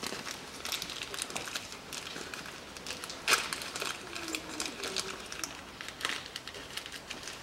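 A small plastic parts bag holding new drain-plug sealing rings crinkling as it is handled, with scattered light clicks; sharper clicks about three seconds in and again about six seconds in.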